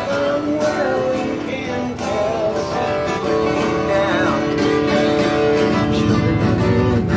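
Acoustic guitar being strummed, with a man singing along.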